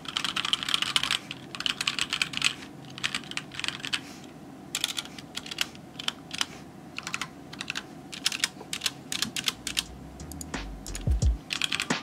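Typing on a HyperX Alloy Origins Core mechanical keyboard with HyperX Aqua tactile switches: quick runs of key clacks as words are typed out, broken by short pauses and one longer pause about four seconds in.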